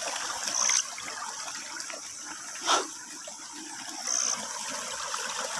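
Water trickling and flowing in a small irrigation ditch, a steady wash of water noise, with two short high chirps and one brief sharp rustle about halfway through.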